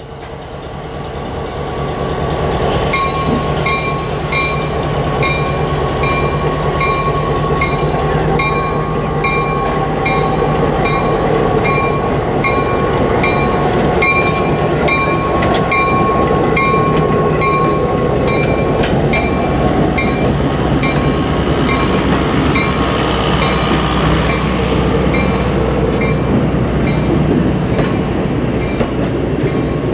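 Ex-Southern Pacific EMD SW900 diesel switcher passing slowly with a coach in tow. Its engine rumble and the wheels' clatter on the rails grow louder over the first couple of seconds as it comes up, then hold steady, with the locomotive bell ringing in an even rhythm.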